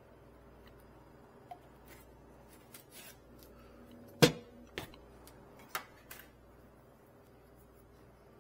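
Scattered clicks and knocks from parts being handled inside a refrigerator's freezer compartment, over a faint steady hum. The loudest is a single sharp knock about four seconds in, with a few lighter clicks around it.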